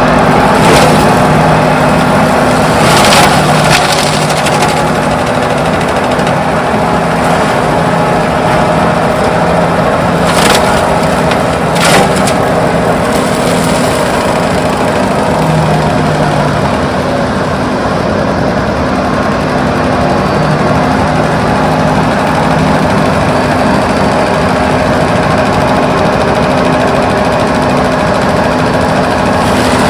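Excavator-mounted Enviro mulcher working: the Doosan DX340LC's engine runs steadily under load while the mulcher head shreds palm wood, with several sharp cracks of splintering wood in the first dozen seconds.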